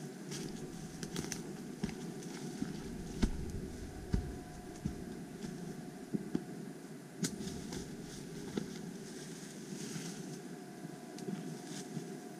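Irregular footsteps on a forest trail, with sharp snaps and crackles of twigs and dry leaf litter, over a steady low noise on the microphone.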